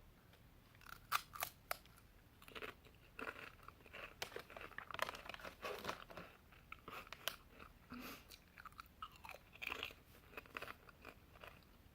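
Ketchup-flavoured chips being bitten and chewed, a few sharp crunches at first, then a long run of irregular crunching.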